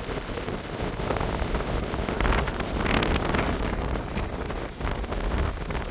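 Atlantic Ocean surf washing on the shore, with wind buffeting the microphone; the surge swells around the middle.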